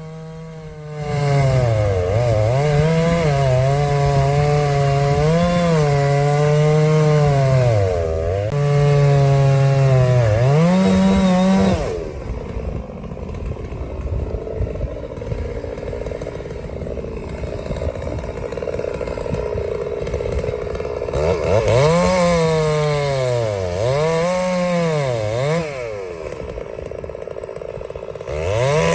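Chainsaw cutting through a dead tree, its engine note dipping as the chain bogs under load and climbing again as it frees up. It eases off about twelve seconds in, cuts again from about twenty-one seconds for several seconds, and eases off once more before picking up near the end.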